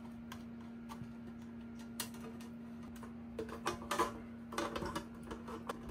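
Light clicks, taps and rustling of hands handling a sheet-metal case and pulling wiring through its cable glands, busiest in the second half, over a faint steady hum.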